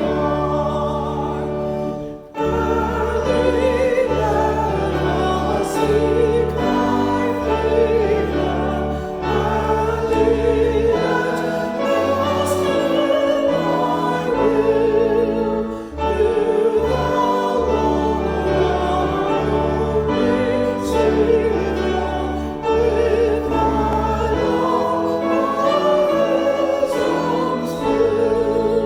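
Choir singing sacred music, with wavering sustained voices and long held low bass notes underneath that change every second or two.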